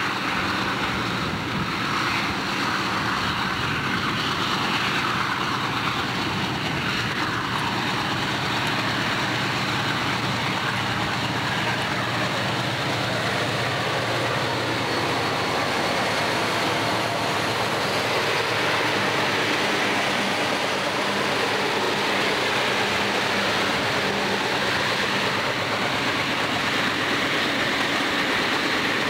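Diesel freight locomotives passing close under power, a steady engine drone with the rumble of the train on the rails; the engine tone fades near the end as the cars roll by.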